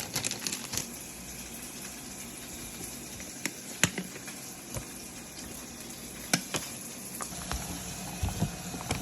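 Steady hiss of food cooking in a hot pan, with scattered sharp pops and clicks.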